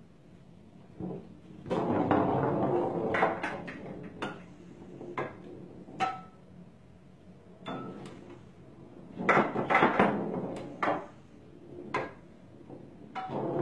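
Plastic foosball table rods and players knocking and rattling as a cat walks across the table and paws at them: a burst of clattering about two seconds in and another around nine to eleven seconds, with single clacks between.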